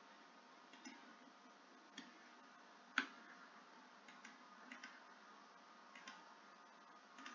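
Computer mouse clicking faintly, about eight scattered clicks, one about three seconds in much louder than the rest, over quiet room hiss.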